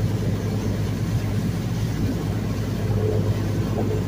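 Boat engine running steadily under way, a constant low note, with the hiss of water rushing past the hull.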